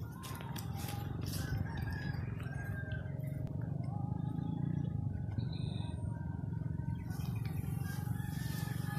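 Roosters crowing, several drawn-out calls at different pitches, over a steady low rumble.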